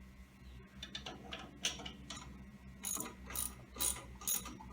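Socket ratchet clicking as the flange bolts of a hot-water heating circulator pump are snugged up: a few faint strokes, then regular clicking strokes about twice a second in the second half.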